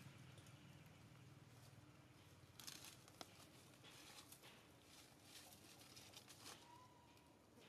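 Faint, intermittent rustling and crackling of dry leaf litter, a few soft crunches scattered through, over near silence.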